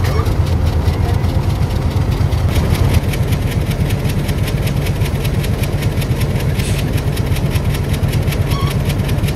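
Diesel-electric locomotive engine idling close by, a steady low rumble with a rapid even beat, while coaches are being coupled to it.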